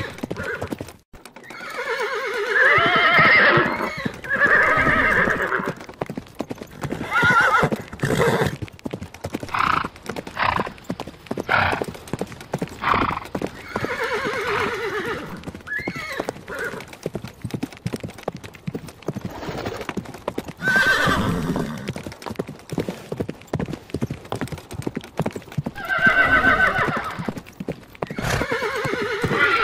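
A horse whinnying several times, each call a wavering, quavering one lasting a second or two, with a run of hoof clip-clops in the middle.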